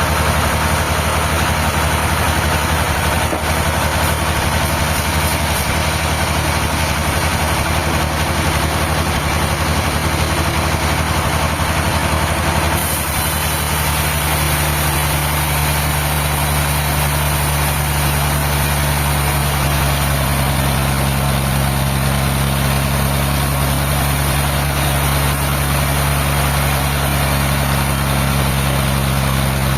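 Diesel engine of the sawmill machinery running steadily at a constant speed, with a steady low hum.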